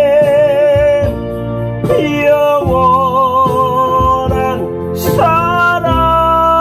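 A man singing a slow Korean trot ballad to piano accompaniment, holding long notes with a wavering vibrato and moving to a new note about two seconds in and again near the end.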